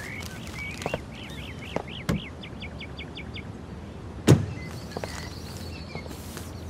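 Birds chirping over steady outdoor ambience, ending in a quick run of repeated chirps. About four seconds in comes a single loud thud, a car door being shut.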